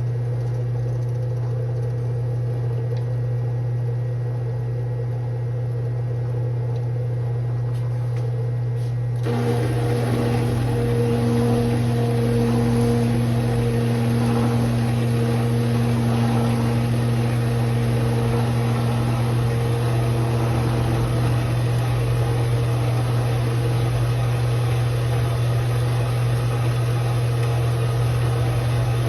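Bandsaw running with a steady, loud electric-motor hum. About nine seconds in the sound grows fuller and a little louder and stays that way.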